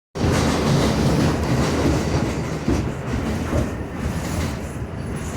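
R62 subway train running on the track: a loud, steady rumble and rattle with occasional clicks of wheels over rail joints, easing off slightly toward the end.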